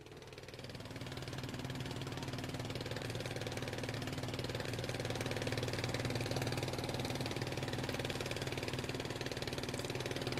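Boat engine running steadily at an even speed, fading in over the first second or two.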